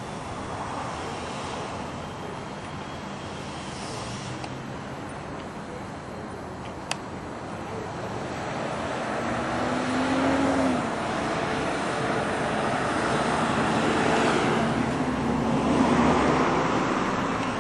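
Road traffic noise: a steady rush of passing vehicles that swells several times in the second half, with one sharp click about seven seconds in.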